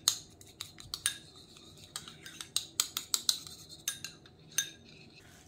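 Metal teaspoon beating egg yolk in a small ceramic bowl, clinking against the bowl's sides in quick, irregular taps.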